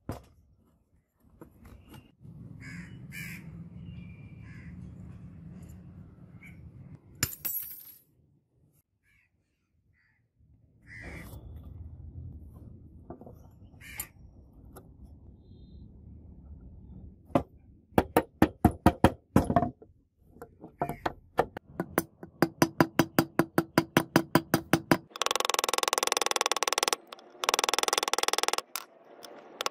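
Crows cawing a few times in the background. Then a run of rapid sharp taps, about five a second. Near the end, a handheld rotary tool runs loudly in short bursts against the razor's brass handle.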